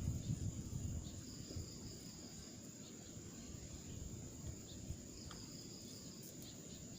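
Steady high-pitched insect drone, with a low muffled rumble that dies away in the first second.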